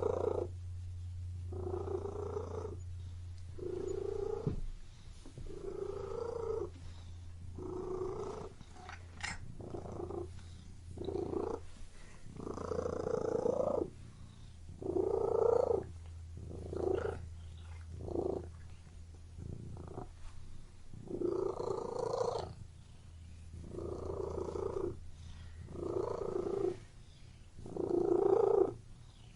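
Domestic cat purring up close, in rhythmic swells that rise and fall about every two seconds with its breathing.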